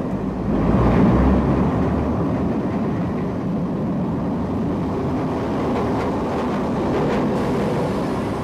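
Metropolitan Railway electric locomotive running slowly over the track, a steady rumble that swells about a second in, with a few faint clicks later on.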